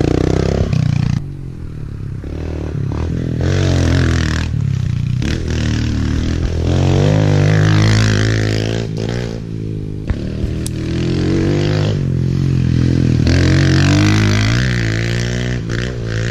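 Kawasaki KLX pit bikes' small four-stroke single-cylinder engines revving up and down as they accelerate through dirt-trail turns. The engine pitch rises and falls again and again, loudest as a bike passes close about halfway through and again later.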